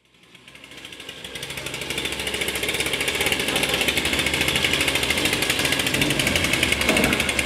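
Stihl chainsaws idling with a fast, even putter, fading in from silence over the first two seconds and then holding steady.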